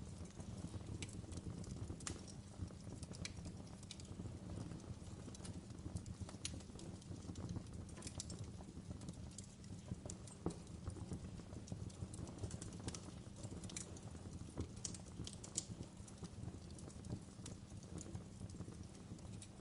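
Wood fire crackling in a fireplace: a low steady rush of burning under irregular sharp snaps and pops, several a second, a few louder ones standing out.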